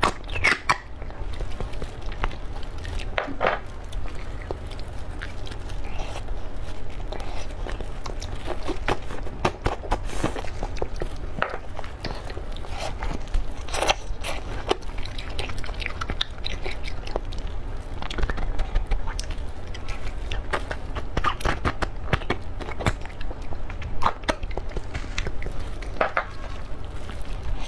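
Close-miked wet slurping and sucking as marrow is drawn out of braised lamb leg bones, with irregular mouth smacks and clicks of chewing.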